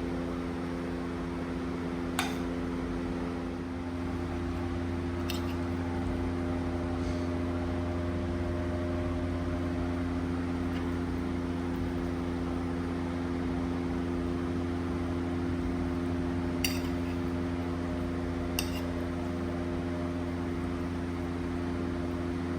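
Steady mechanical hum with a few held tones, like a running fan, and four light, sharp clinks of dishes scattered through it.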